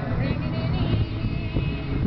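Music with singing, over the low rumble of a car driving on the highway.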